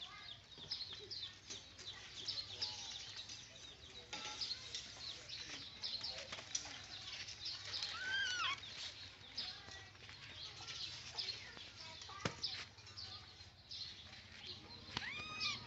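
Many short, high-pitched chirps run on throughout, with a few louder rising-and-falling squeaks about halfway through and again near the end. A single sharp knock comes a little after three quarters of the way through.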